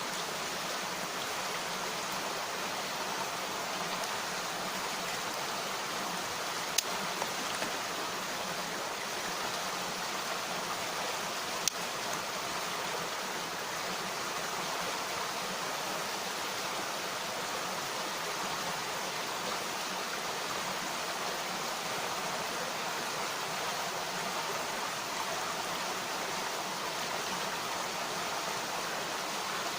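A mountain stream rushing steadily, with a few sharp pops from a campfire, a cluster about seven seconds in and one more near twelve seconds.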